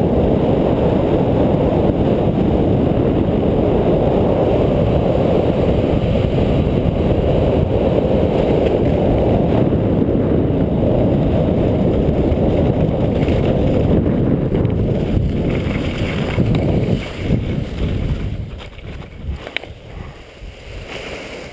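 Wind rushing over the microphone as a speedrider descends on skis under his wing, a loud steady rumble that dies away about three quarters of the way through as he slows to a stop. Faint scrapes and crackles follow near the end.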